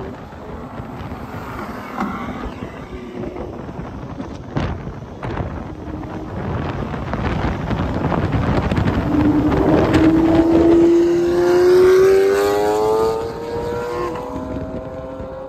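Lamborghini supercar engines and road noise as the rally cars drive past. From about halfway through, one engine accelerates hard, its note climbing steadily for several seconds and loudest near the end.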